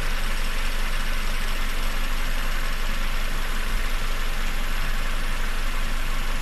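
Peugeot 407's EW10A 2.0-litre four-cylinder petrol engine idling steadily, the sound the owner presents as one of its strange noises.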